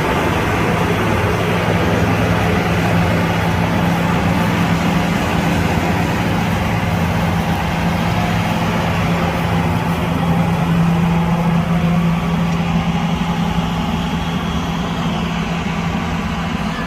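Motor grader's heavy diesel engine running steadily with a constant low drone, easing off slightly near the end.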